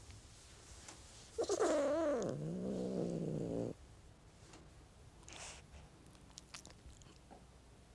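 Domestic cat giving one long call about a second and a half in: a wavering meow that drops into a low, held growl and stops after about two seconds.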